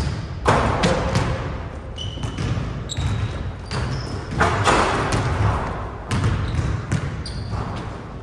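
Basketballs bouncing on a hardwood gym floor, with short high sneaker squeaks and knocks as players jump and dunk, echoing in a large hall.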